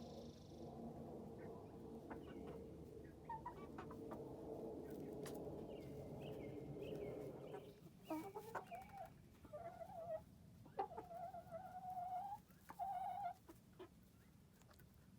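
Flock of young chickens, about three months old, clucking and murmuring together. In the second half, several louder drawn-out calls stand out, one held for about two seconds.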